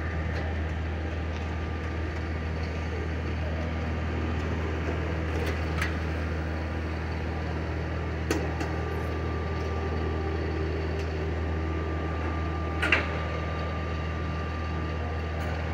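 A vehicle engine idling: a steady low hum, with a few light clicks over it.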